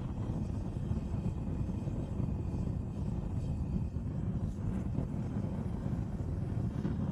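Hose-fed propane torch burning steadily, a constant low rushing noise as its flame is held on a sheet-metal rose.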